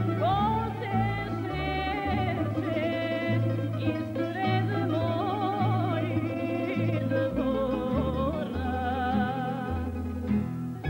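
A woman singing a traditional Bosnian folk song with wavering held notes, accompanied by a tamburica orchestra with a stepping bass line.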